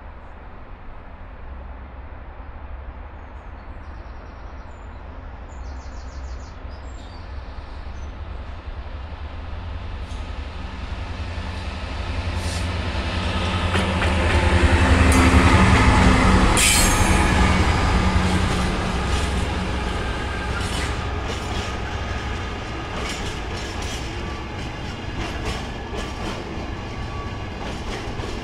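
Freightliner Class 66 diesel locomotive, with its two-stroke EMD V12 engine, growing louder as it approaches and passes, loudest about halfway through. A string of empty container flat wagons follows, rattling past with a run of sharp wheel clicks over the rail joints.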